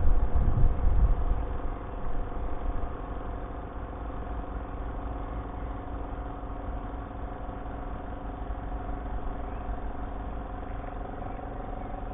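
Spin dryer of a compact twin-tub washing machine spinning a load of towels: a steady motor hum, with a heavy low rumble in the first couple of seconds that settles as the drum runs evenly, and the pitch edging up slightly near the end.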